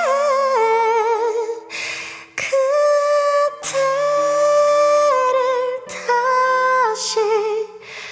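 A woman singing long held notes, wordless or near-wordless, with vibrato at the ends of phrases and short breaths between them, over soft, sustained low accompaniment chords.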